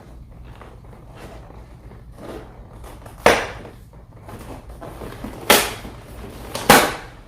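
Cardboard and plastic toy packaging being handled and opened, with soft rustling and three sharp, loud noises: one about three seconds in and two near the end.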